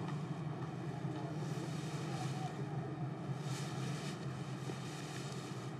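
Steady low background rumble with faint hiss, swelling slightly twice in the middle: outdoor ambience.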